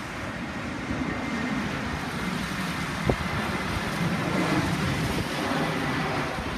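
Airbus A320 airliner's twin jet engines rumbling on landing approach, growing gradually louder as it comes in low overhead, with strong wind gusting on the microphone.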